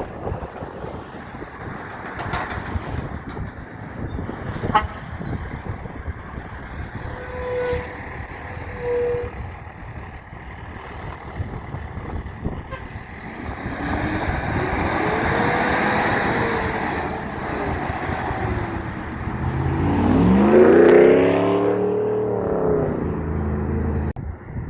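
Big trucks passing on a road. A horn gives two short toots about halfway through. Near the end a truck goes by loudly, its engine note rising sharply and then falling away.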